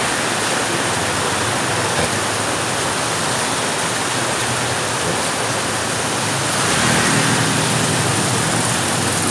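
Heavy tropical rain pouring steadily onto a street. A motorbike passes through the wet, its engine and tyre hiss swelling about two-thirds of the way in.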